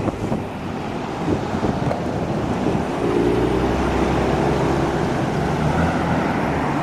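Road traffic and wind on the microphone; from about three seconds in, a vehicle's engine runs steadily nearby, slightly louder.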